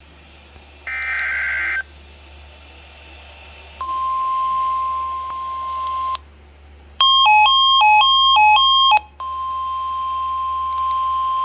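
Emergency alert tones opening a NOAA Weather Radio flash flood warning. A short buzzy data burst comes about a second in. Then a steady single-pitch alarm tone, a two-second run of beeps alternating between two pitches, and the steady alarm tone again.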